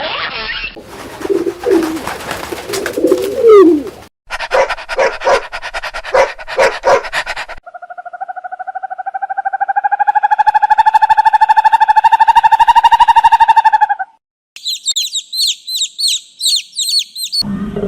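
A run of separate animal calls spliced one after another, each cutting off abruptly: low sliding calls, then a string of about eight short pulsed calls, then one long pitched buzzing call lasting about six seconds, and near the end quick high chirps about three a second.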